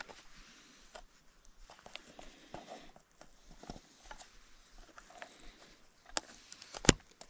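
Small clicks and rustles of fingers picking through foam popper flies in a clear plastic fly box, with two sharper clicks near the end.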